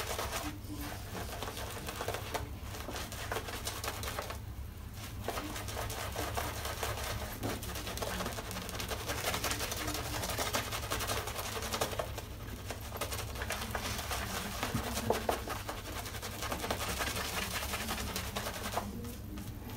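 Boar-bristle shaving brush scrubbing and swirling shaving lather on a stubbled face, a steady wet crackling with a few short breaks as the brush is lifted and moved.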